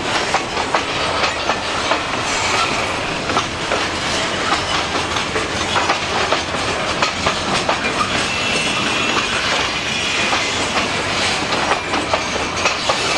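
Freight cars of an Escanaba & Lake Superior train rolling past, their steel wheels clacking steadily over the rail joints with a continuous rumble. A thin high squeal, typical of wheel flanges on the rail, joins for a few seconds past the middle.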